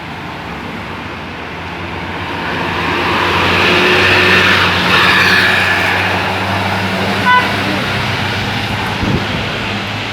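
Bus driving past, its engine and road noise swelling to a peak about four to five seconds in and then fading. A short horn toot comes about seven seconds in.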